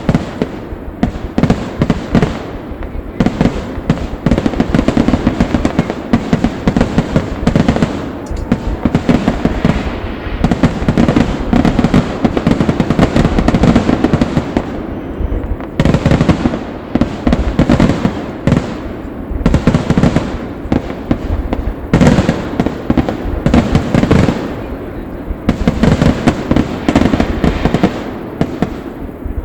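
Aerial fireworks going off in a dense, continuous barrage of overlapping bangs, many per second, with a few brief lulls.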